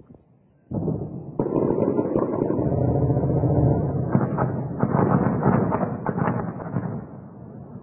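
Explosions: a loud, distorted run of bangs and rumble that starts suddenly about a second in and dies down about a second before the end.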